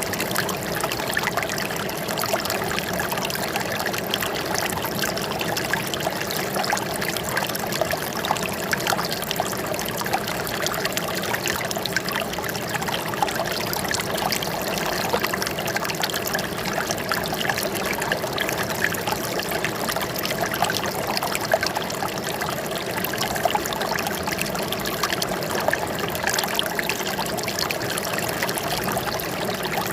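Flowing water trickling steadily, an even rush with many small splashes and no pauses.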